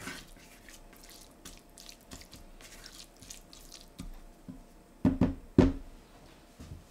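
Chopped spring onions and chilli crackling softly in a stainless steel frying pan as a silicone spatula stirs them. A few louder knocks about five seconds in, the spatula striking the pan.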